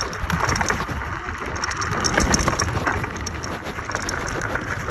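Off-road electric scooter riding over rough ground: a continuous rumble with irregular crackles and knocks from the tyres and frame on the uneven surface.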